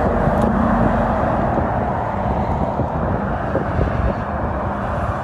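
Steady road traffic noise from cars and a lorry passing along a dual carriageway: a continuous wash of tyre and engine sound. A low engine drone stands out over the first two seconds as the lorry passes underneath.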